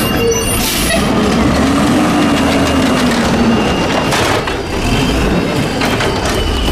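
Toy garbage truck rolled along a surface, its plastic wheels rumbling and clattering, with a faint whir that rises and falls twice and a few light knocks.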